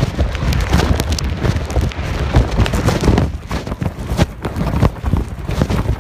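Thunderstorm wind gusting hard against the microphone, with heavy rain and many sharp ticks of drops striking close by.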